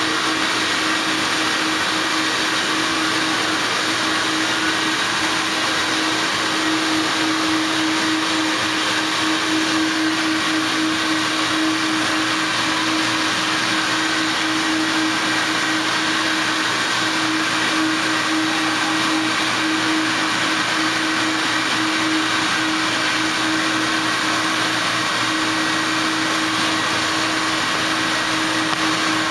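CAMaster Hurricane vacuum pump running steadily, a constant rushing hiss with a steady hum, as it draws vacuum through the router table's spoil board to hold parts down.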